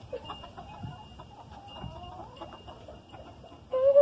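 Chickens clucking in a coop, a scatter of short, soft calls. Near the end a person starts humming one long, steady note, louder than the birds.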